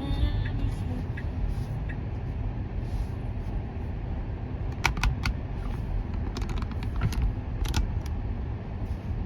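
A car driving, heard from inside the cabin: a steady low road and tyre rumble, with a few sharp clicks about halfway through.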